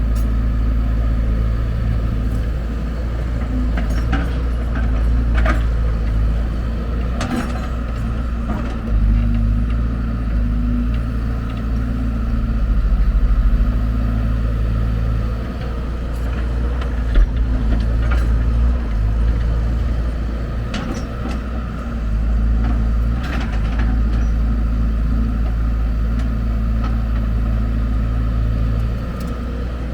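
Heavy diesel engine running steadily, with short knocks and clatters now and then.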